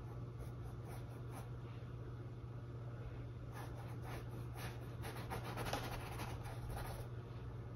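Faint scratchy strokes of a small paintbrush dragging acrylic paint across canvas, short flicks laying in fur hairs, coming thicker in the second half. A steady low hum runs underneath.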